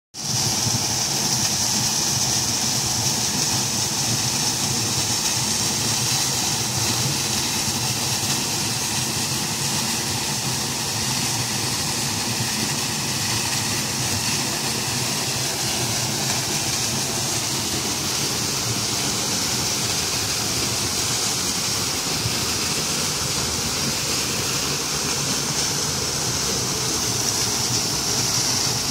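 Small waterfall pouring from an arched outlet in a wall and splashing down a narrow stone channel: a steady rush of falling water.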